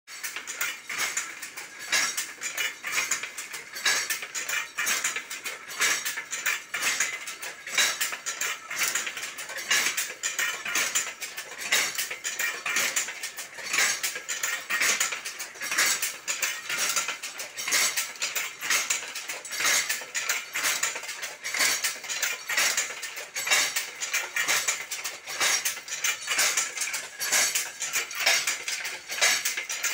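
Maina automatic handloom weaving, its wooden and metal parts making a steady rattling clatter. A louder clack comes about every two seconds, with quicker clicks in between.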